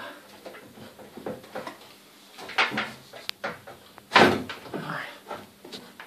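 A water heater's casing cover being pushed and knocked into a tight gap in a wooden cupboard: irregular scraping and knocking, with a sharp click a little after three seconds in and the loudest knock at about four seconds in.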